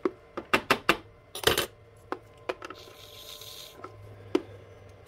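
Small metal tools and fittings clinking against a hard bench: a quick run of sharp clicks and clinks in the first second and a half, a short hiss about three seconds in, then two more clicks near the end.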